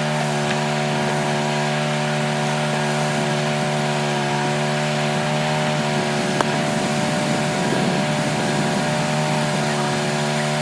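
Sawmill running steadily at a constant pitch, its blade cutting through a big locust log; the blade has been dulled by dirt packed in the log's hollow and is cutting crazy slow.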